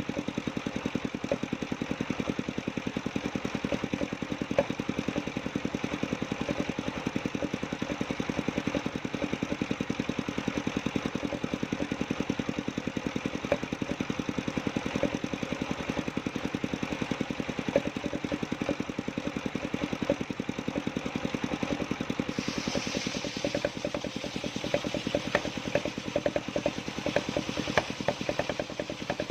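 The engine powering a portable circular sawmill, running steadily with a fast, even pulse. About three-quarters of the way through a brief hiss joins in, followed by scattered clicks.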